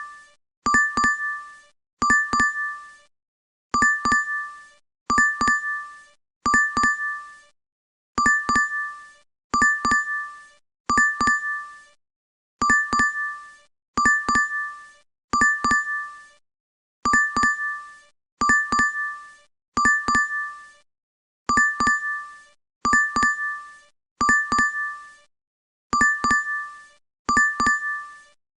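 DoorDash app order-alert chime repeating over and over: a quick double ding of two bell-like tones, sounding in groups of three with a short pause between groups.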